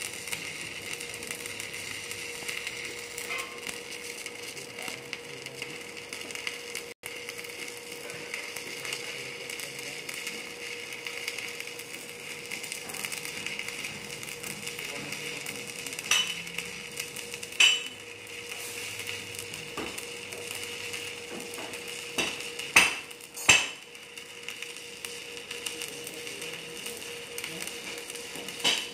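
Stick (shielded metal arc) welding arc crackling steadily over a faint steady hum, with four sharp, louder pops in the second half.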